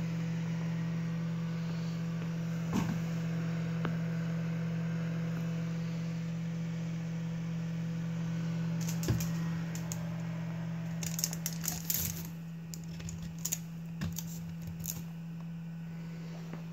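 Steady electrical hum from a homemade forced-air incubator running, with its circulation fan and ultrasonic humidifier switched on. Scattered light clicks and taps, a couple early on and a quick cluster in the second half.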